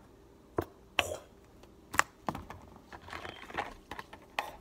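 About five sharp clicks and knocks, spread out, as a bottle and a utensil are handled over a bowl of noodles, with light rustling and stirring in between.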